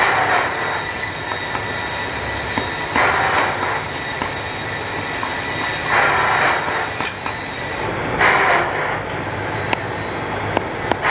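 Steady workshop machinery running, swelling louder about every three seconds. Near the end come sharp light taps of a hand hammer on a scissors blade laid on a small steel anvil stake.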